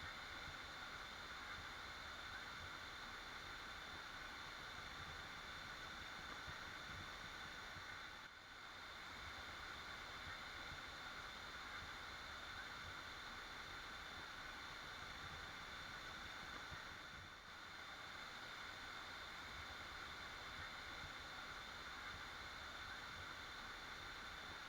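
Waterfall rushing in a steady, even stream of water noise, faint throughout, with two brief dips in level about a third and two thirds of the way through.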